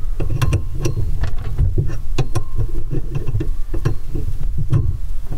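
An adjustable wrench clicks and scrapes against a brass compression nut as the nut is tightened onto the red plastic tubing at a water-supply valve. The clicks are short and irregular, over a steady low rumble.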